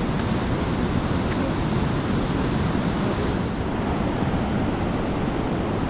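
Sea surf breaking and washing in, a steady rushing.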